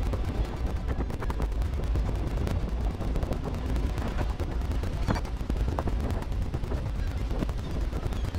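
Many fish splashing and thrashing at the surface of a crowded net, a dense patter of short splashes and knocks over a heavy low rumble.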